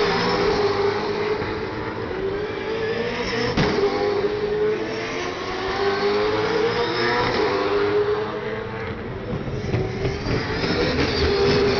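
Race cars, V8 touring cars, passing one after another at racing speed, each engine note rising and then falling as it goes by. The passes overlap into an almost continuous engine drone.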